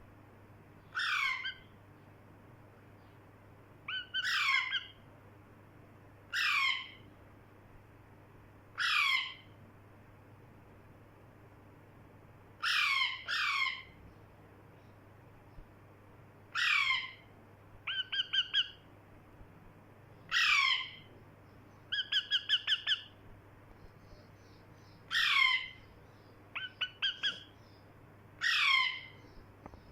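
Parrot squawking: about a dozen harsh calls that each slide down in pitch, every two to four seconds. Mixed in are a few quick runs of short, clipped notes.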